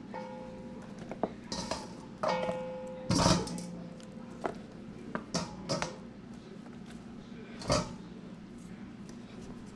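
Kitchen clatter from a disposable aluminium foil pan of wings and vegetables being handled: scattered knocks, crinkles and clinks, over a steady low hum. About two seconds in, one clink rings briefly like metal, and the loudest knock comes a little after three seconds.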